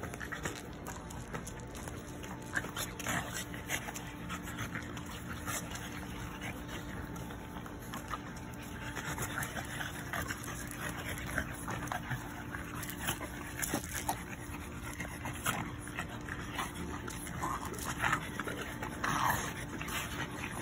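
French bulldog puppies play-wrestling and making dog noises, with short calls scattered through and the loudest few in the last couple of seconds.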